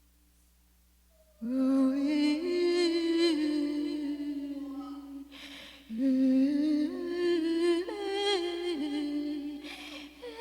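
A voice humming a slow, wordless, wavering melody in two long phrases, with a short pause between them; it comes in about a second and a half in, after near silence.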